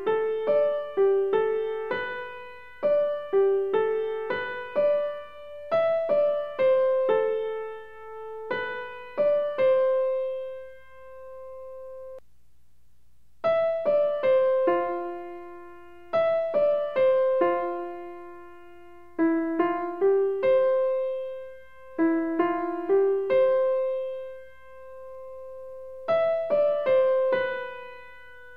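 Background piano music: a slow melody of single struck notes that ring and fade, with a short pause near the middle.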